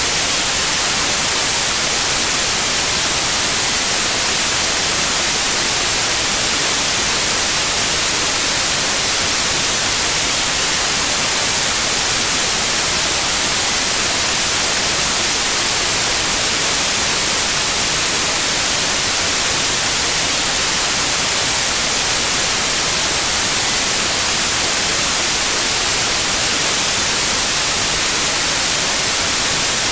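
Synthetic white-noise hiss with a steady, very high-pitched 9645 Hz sine tone on top, a tinnitus-matching sound therapy signal. The tone stops about four seconds in, leaving only the hiss, and comes back near the end.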